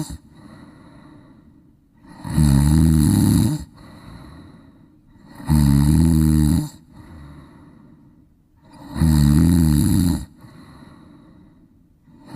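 A golden retriever snoring in its sleep, a loud rasping snore about every three seconds with a softer breath out between.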